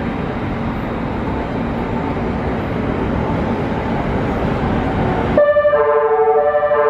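Steady noisy hum of the stationary E491 East i-E electric inspection train at the platform. About five seconds in, the hum drops away and a station departure melody starts, a chime-like tune of stepped notes, the signal that the train is about to leave.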